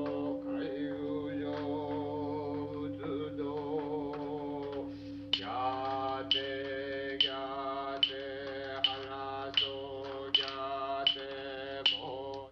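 Male voices chanting a Buddhist sutra on a steady held drone, the kind of chanting heard at a temple memorial service. From about five seconds in, a sharp knock keeps the beat just under once a second, speeding up slightly.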